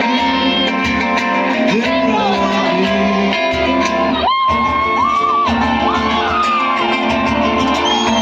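Live band music, loud, with guitars; an electric guitar lead plays bending, sustained notes over the band.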